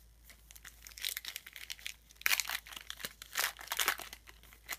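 Wrapper of a pack of trading cards crinkling in several short bursts as it is handled and torn open.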